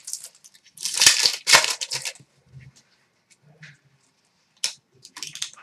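Trading cards and a foil card pack wrapper being handled: crinkling and rustling in short bursts about a second in and again near the end, with light ticks of cards in between.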